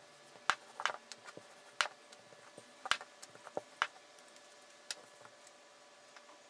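Irregular sharp taps and knocks of a rolling pin on the table as small balls of lahmacun dough are rolled out, roughly one a second and stopping about five seconds in, over a faint steady hum.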